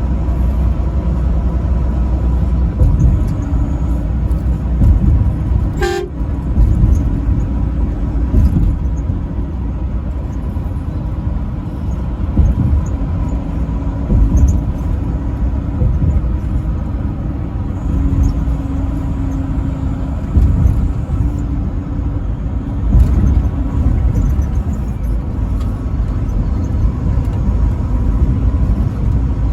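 A truck running at highway speed, its engine and road noise making a steady low rumble, with one short horn toot about six seconds in.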